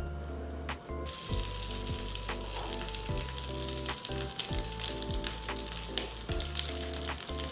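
Food sizzling as it fries in a hot pan, the sizzle starting about a second in.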